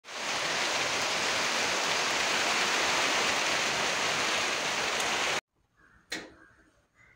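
Heavy rain falling as a steady, even hiss that cuts off suddenly about five and a half seconds in.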